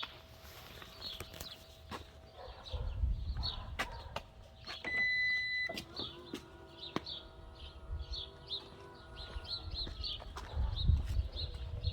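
A 3rd-gen Toyota Sienna's power door: a single beep about five seconds in, then its motor running steadily for about four seconds before stopping. Birds chirp throughout.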